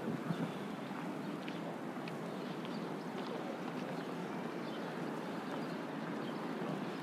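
Steady wash of distant road traffic, with a few faint ticks scattered over it.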